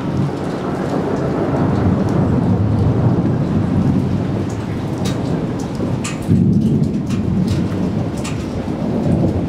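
Thunder rumbling low and continuously over steady rain, with a louder roll of thunder breaking in suddenly about six seconds in. Scattered raindrops tick close by.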